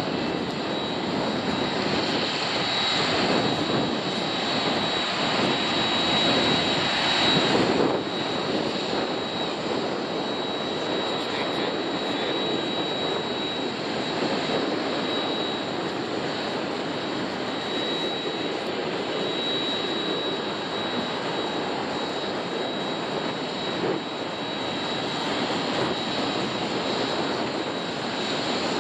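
Airbus A310's twin jet engines at taxi power: a steady jet noise with a thin high whine. It is a little louder for the first eight seconds, then drops suddenly and stays steady.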